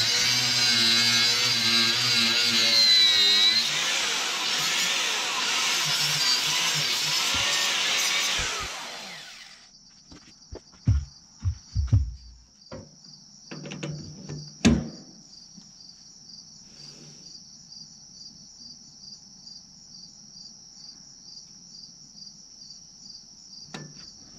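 Angle grinder cutting into a steel bracket on a lawn tractor frame, its whine wavering under load, running down and stopping about nine seconds in. After that, a few sharp metal clanks and knocks over a few seconds, with crickets chirping steadily in the background.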